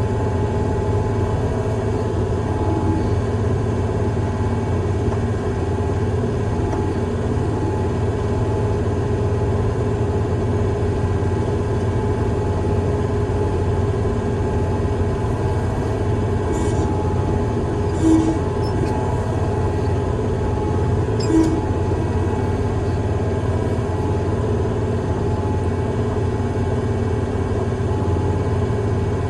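Heavy construction machine's engine running steadily under a constant load, with a few short clanks about two-thirds of the way through.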